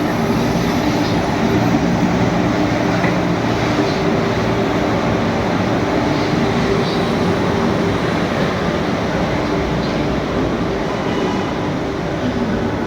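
Train noise at a railway platform: a steady rumble with a low, even hum running under it.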